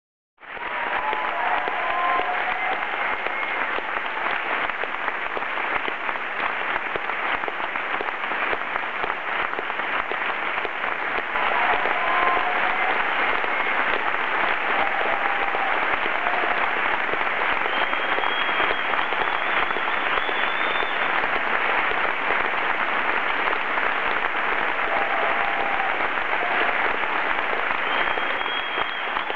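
A large theatre audience applauding, steady and sustained, with a few cheers rising above the clapping. It starts suddenly about half a second in.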